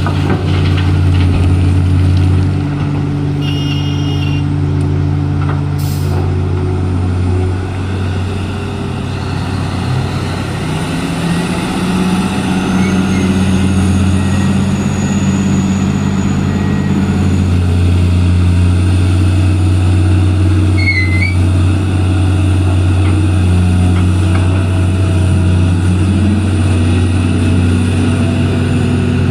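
Heavy diesel engines of a crawler hydraulic excavator and dump trucks running under load, their pitch dropping and rising as the machines work. A brief high tonal sound comes about four seconds in, and a sharp knock about six seconds in.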